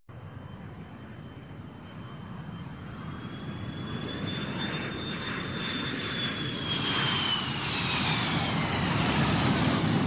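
Jet airliner's engines drawing near: a high whine over a rumbling noise that grows steadily louder. From about two-thirds of the way in, the whine falls in pitch.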